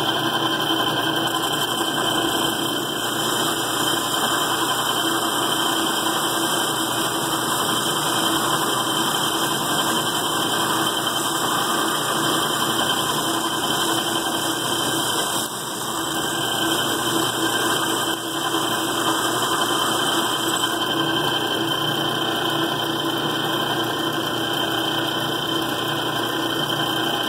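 Old, worn metal lathe running steadily while taking a cut on a piece of steel camshaft, the compound fed by hand; the machine noise dips briefly twice past the middle.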